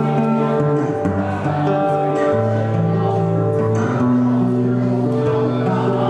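A live band playing a slow piece: full held chords that change every second or two.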